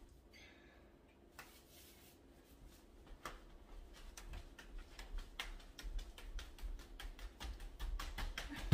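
Sectioned plastic hula hoop spinning around a person's body, clicking in a quick, uneven rhythm that grows louder and denser from about three seconds in.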